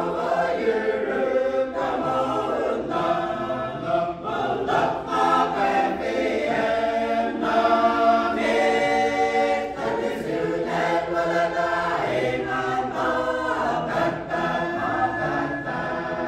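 Mixed church choir of men and women singing a hymn together.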